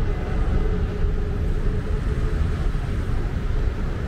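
Road traffic: a steady low rumble of cars and taxis passing.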